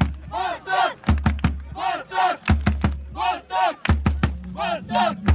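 Football supporters chanting in rhythm to a bass drum. A few drum beats are followed each time by a short two-syllable shout from the group, repeating about every second and a half.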